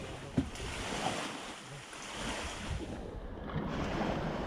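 Steady rush of wind and sea waves, with wind buffeting the microphone and a short knock about half a second in.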